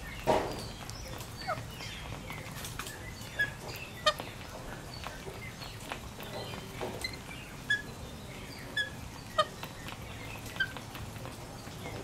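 Rainbow lorikeets pecking food off a glass tabletop: irregular sharp taps and clicks of their beaks on the glass, about nine in all, the loudest near the start.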